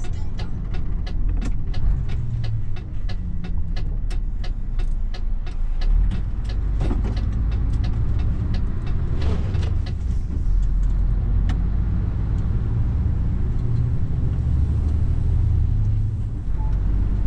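Mercedes Actros truck's diesel engine running, heard from inside the cab, with the turn indicator ticking at about three ticks a second while the truck turns at a junction; the ticking stops about ten seconds in and the engine drone carries on.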